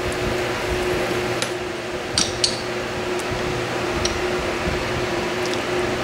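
Steady hum of a fan or air conditioner running in a small room, with a few light clicks about one and a half to two and a half seconds in and again near four seconds.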